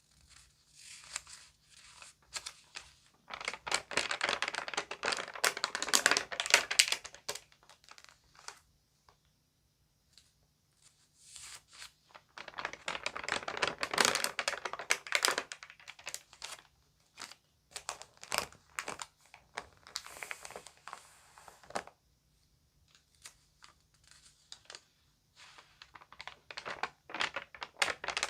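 Crinkly magazine pages being handled and turned, crackling in irregular bursts: two longer spells of dense crinkling with scattered crackles and short quiet pauses between.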